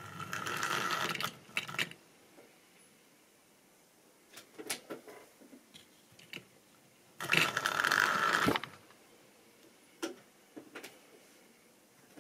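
Tri-ang model steam tank locomotive running on sectional track: the small electric motor and gears whir and the wheels rattle and click over rail joints and points. It comes up loudly twice, at the start and again about seven seconds in, with scattered clicks between.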